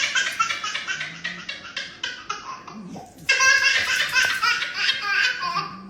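A baby laughing in quick, high-pitched bursts, breaking into louder, sustained laughter about halfway through.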